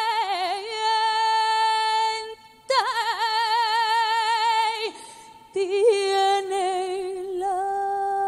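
Female copla singer holding long, wavering notes with wide vibrato and ornamented runs, in three phrases separated by short breaths.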